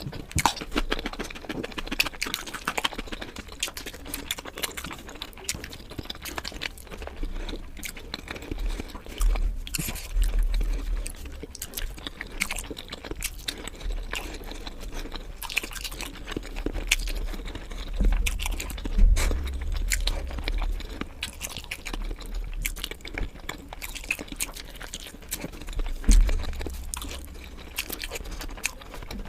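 Close-miked chewing and biting of food: a dense, irregular run of wet mouth clicks and crunches, with a few dull low thumps now and then.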